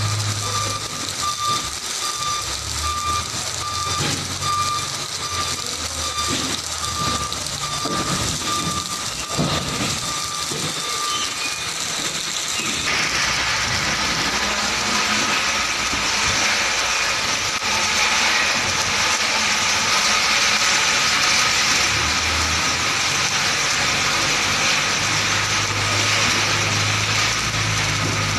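Container tractor-trailer's reversing alarm beeping repeatedly over its diesel engine running, for the first twelve seconds or so. From about thirteen seconds in, a steady hiss of rain on the wet yard grows louder over the engine.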